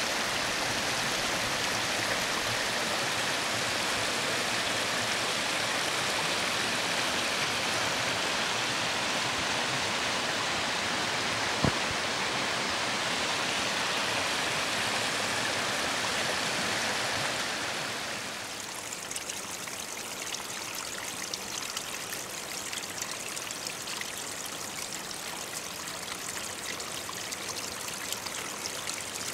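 Small brook running steadily down a narrow, stony channel. About eighteen seconds in it gives way to a quieter, finer trickling and spattering of water over loose shale stones. A single sharp click about twelve seconds in.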